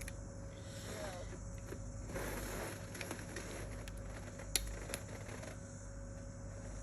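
Light handling noises of hands working on a phone: a brief rustle about two seconds in, then two sharp clicks, one at about four and a half seconds and one just before five, over a steady low hum.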